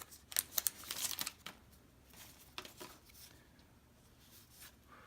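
Baseball trading cards being flipped through and handled: a quick run of soft card snaps and flicks in the first second and a half, then a few more about two to three seconds in.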